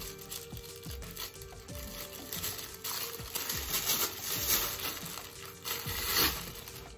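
Plastic wrapping crinkling and rustling as a microphone is unwrapped by hand, loudest in the second half, over soft background music.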